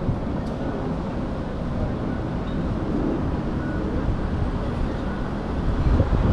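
Steady, dense low rumbling noise with no speech.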